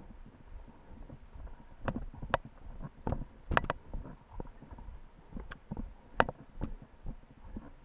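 Kick scooter rolling over a rough dirt trail: a steady low rumble of tyres on gravel and wind on the microphone, broken by sharp knocks and rattles as the scooter jolts over bumps, the loudest a cluster about three and a half seconds in and another a little after six seconds.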